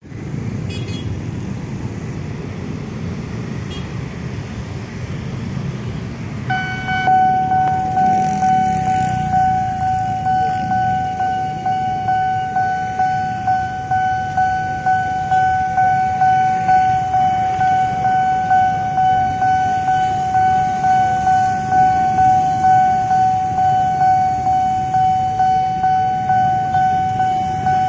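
Level-crossing warning bell starting about six and a half seconds in, a steady electronic ringing that pulses about once a second, over the running engines of waiting and passing cars and motorbikes.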